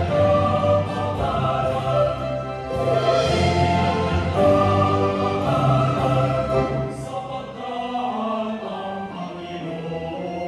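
Mixed school choir singing with electronic keyboard accompaniment, sustained chords over a full bass; the music grows softer about eight seconds in.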